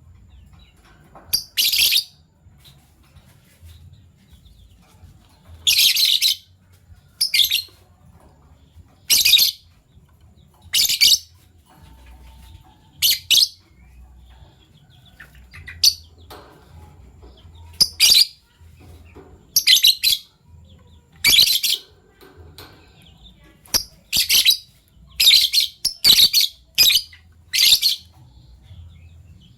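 Fischer's lovebirds giving short, sharp, high-pitched chirps, singly and in quick pairs, at irregular intervals every second or two.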